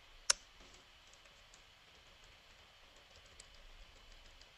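Computer keyboard clicks: one sharp keystroke about a third of a second in, then a few faint, scattered key taps.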